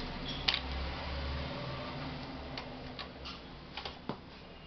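Small sharp clicks and taps of laptop parts being handled during a repair: one crisp click about half a second in, then a handful of fainter ticks spaced irregularly, over a low steady hum.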